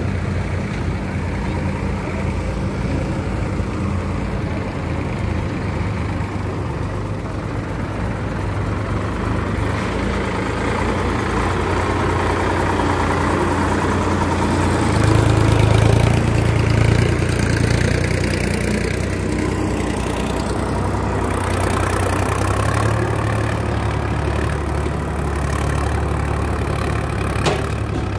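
Sonalika Sikandar DI 50 RX tractor's diesel engine running steadily while hauling a fully loaded soil trolley, swelling louder about halfway through.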